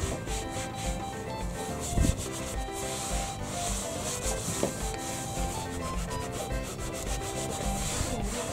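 Cloth towel rubbing back and forth over a plastic engine cover, wiping off sprayed-on resin cleaner, with one louder knock about two seconds in.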